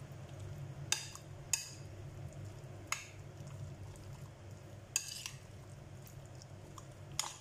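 Chicken marinade being stirred in a bowl: a utensil scrapes and clinks against the bowl about five times, a second or two apart, over a steady low hum.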